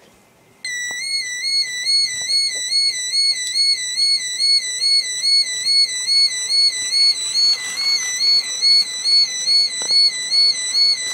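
Model level crossing's electronic warning sounder, a high warbling tone that wavers up and down about three times a second. It switches on suddenly less than a second in, sounding the crossing alarm as a model train goes through.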